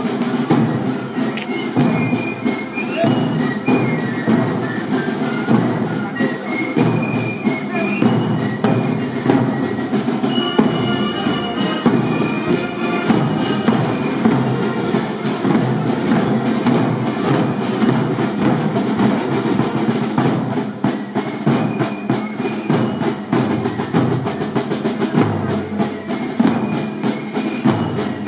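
Background music with a steady percussive beat and a high melody line that comes and goes.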